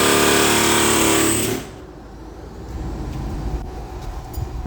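A power tool runs at full speed with a steady whine and hiss, then stops suddenly about a second and a half in, leaving a low shop rumble with a few faint clicks.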